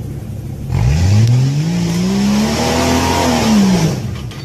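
4x4 SUV engine revving hard on a steep rock climb. It starts about a second in, rises in pitch for about two seconds, then falls away and drops off near the end as the vehicle tips over backward, with a loud hiss running alongside.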